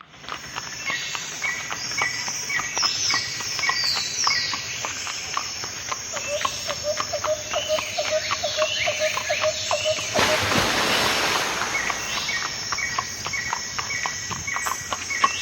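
Outdoor ambience: birds calling in repeated short notes, about three a second, over steady background noise and scattered clicks, with a brief noisy rush about ten seconds in.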